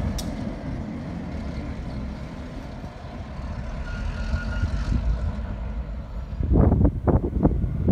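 Low, steady rumble of an idling diesel engine. About six and a half seconds in, loud choppy bursts break in and run to the end.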